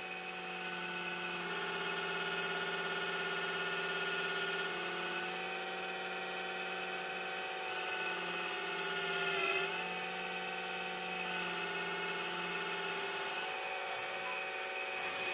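RC VLV 360 scale excavator's hydraulic pump running with a steady whine, its pitch shifting a few times and dipping briefly about halfway through as the stick and bucket are worked. The oil tank is not filled completely, so the pump is drawing short and cavitating.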